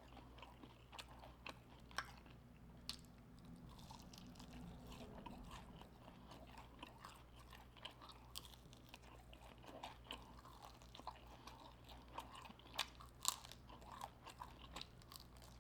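Quiet close-up chewing of crunchy batter-fried prawn coated in hot honey, with scattered crisp crunches and mouth clicks and a few louder crunches near the end.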